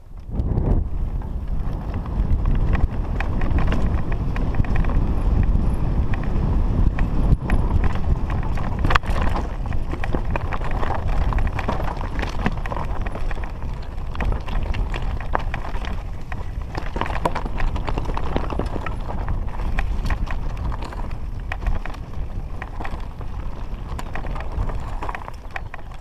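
Mountain bike descending a rocky singletrack: tyres rumbling over loose stones, with many sharp clatters and rattles from the bike as it hits rocks, over a heavy low rumble of wind on the camera microphone. It starts suddenly right at the beginning.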